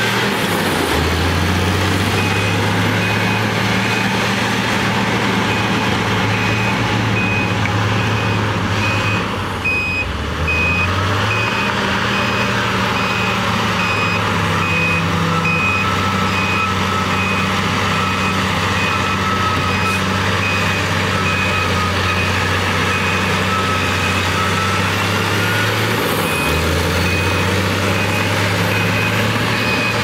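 LiuGong bulldozer's diesel engine running under load, its note dropping and recovering a few times as it pushes soil, with a dump truck's reversing alarm beeping steadily over it.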